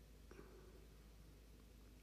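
Near silence: room tone with a low steady hum, and one brief faint sound about a third of a second in.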